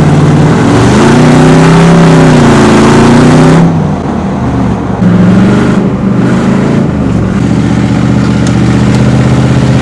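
A 1999 Ford F-150 heard from inside the cab while driving at road speed. The engine note rises and wavers, eases off briefly about four seconds in, then settles into a steady drone.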